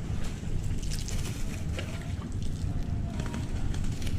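Outdoor waterside ambience: low wind noise on the microphone with water lapping against the wharf.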